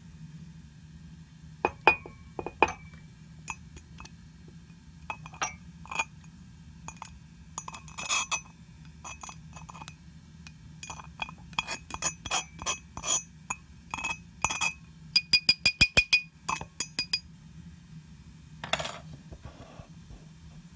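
Glassware clinking: scattered knocks and taps with a thin ringing glass tone, and a quick run of about eight clinks about three-quarters of the way through.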